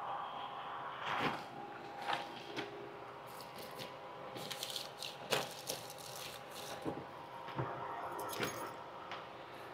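Handling noises from a bag on a motorcycle's rear seat: fabric rustling with scattered small clicks and rattles as things are moved about inside it, over a faint steady hum.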